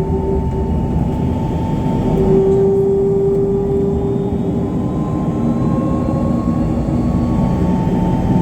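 Dornier 328 Jet's Pratt & Whitney PW306B turbofan engines running steadily, heard from inside the cabin: a low rumble with steady whining tones over it that drift slightly in pitch.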